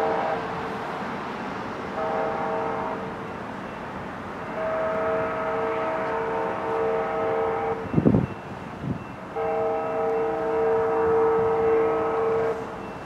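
Locomotive air horn sounding a chord in a series of blasts: a short one about two seconds in, then two long ones, as the BNSF locomotive consist approaches a grade crossing. A brief loud low thump comes about eight seconds in, between the long blasts.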